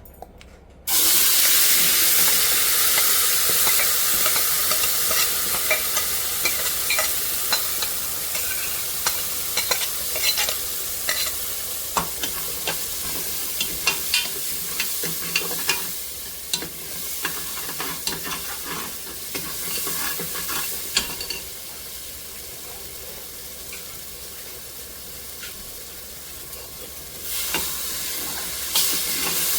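Curry seasoning dropped into hot oil in a pressure pot, bursting into a loud sizzle about a second in, then frying steadily while a spoon clinks and scrapes against the pot as it is stirred. The sizzle slowly eases off and picks up again near the end.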